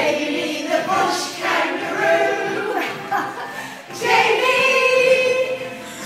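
A group of women singing together, several voices at once.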